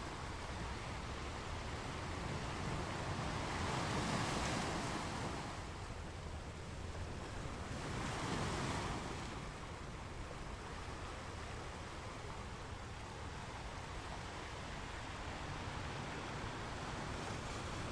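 Sea waves washing onto a rocky beach: a steady rush of surf with two waves breaking louder, about four seconds in and again about eight seconds in.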